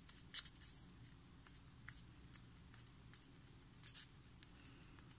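Faint scratchy rustling and small ticks of fingers pressing and rubbing soft cold porcelain clay around a ball. The two loudest scrapes come about half a second in and again near four seconds.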